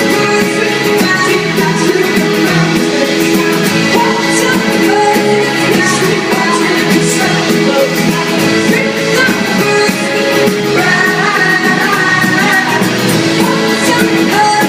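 Live indie-folk rock band playing a song with sung vocals and guitar, at steady full volume.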